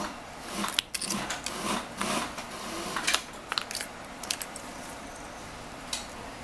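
Light metallic clicks and taps of a precision screwdriver and tiny iPhone parts being handled on a repair bench during disassembly, scattered and denser in the first half, played back sped up.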